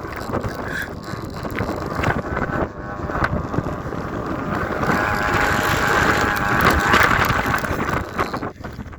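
Thai kite hummer bow (sanu) droning in strong storm wind, a buzzing hum of several tones that swells loudest a few seconds in and dips near the end, over heavy wind rumble on the microphone.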